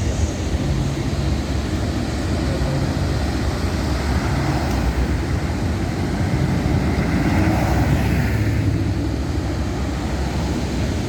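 Busy city street ambience: a steady low rumble of passing traffic, swelling a little about seven to eight seconds in.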